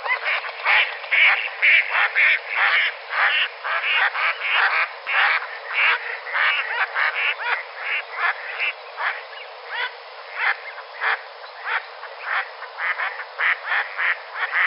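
A dense chorus of short croaking calls from marsh animals, many overlapping each second and somewhat sparser in the second half. It sounds thin and tinny, with no low end.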